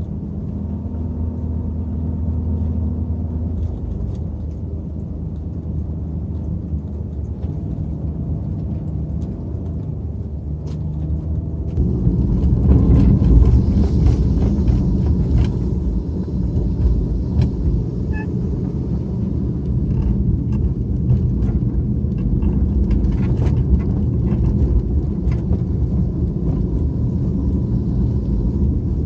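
Car driving: a steady low engine hum and road rumble, which grows louder and rougher about twelve seconds in.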